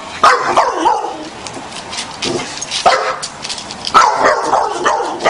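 A dog barking and yipping, a few barks at a time with short pauses between, excited by a turtle chasing it.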